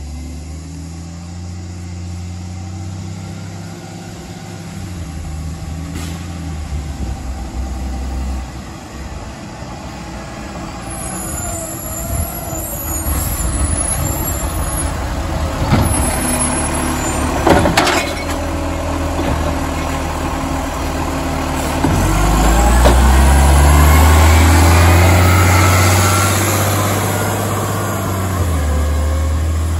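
Garbage truck's diesel engine running during a kerbside bin pickup, with two sharp sounds about two seconds apart near the middle, then the engine revving up louder for several seconds.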